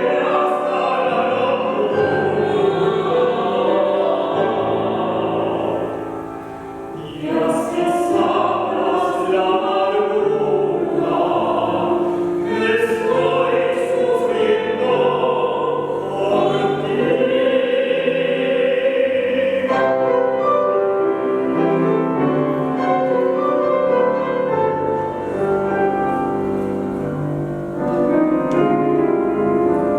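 Choir singing with piano accompaniment. The voices drop back briefly about six seconds in and then come in again.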